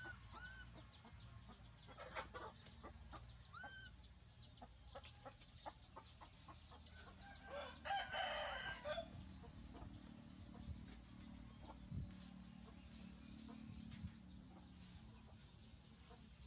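Short chirping animal calls, with a louder, longer call about eight seconds in, over a steady low hum.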